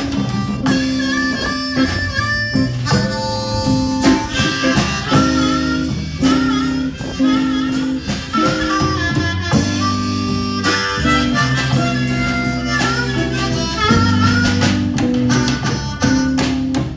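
Blues harmonica playing a solo over guitar accompaniment with a repeating bass line.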